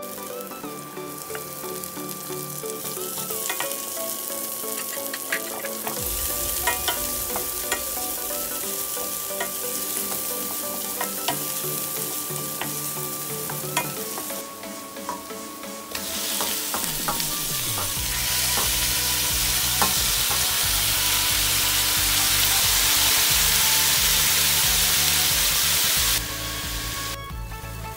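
Garlic and onion sizzling in hot oil in a stainless steel pot, with a wooden spatula stirring and clicking against the pot. Raw chicken wings go into the pot about halfway through, and the sizzle becomes much louder and denser.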